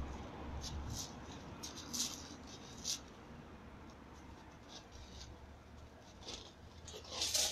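Feet shuffling and pivoting on loose gravel during sparring: short, scratchy crunches, several in the first few seconds, fewer in the middle and more again near the end.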